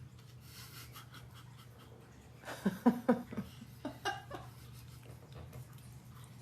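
A person laughing in short bursts about two and a half seconds in, with a few more a second later, over a low steady hum.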